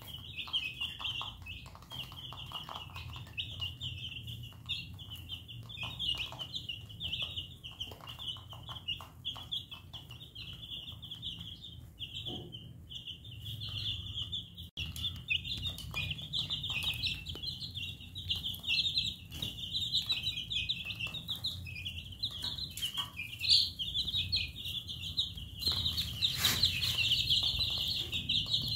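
A flock of baby chicks peeping continuously in a dense, high-pitched chorus of short overlapping cheeps, with scattered light clicks.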